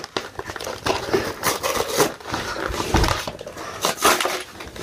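Toy packaging crinkling and rustling as it is opened by hand, in an irregular run of short crackles and scrapes.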